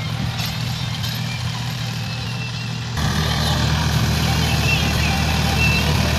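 New Holland 4710 tractor's 2700 cc three-cylinder diesel engine running steadily while driving a rotary tiller through the soil, taking the load easily without bogging down. About three seconds in it becomes suddenly louder and closer.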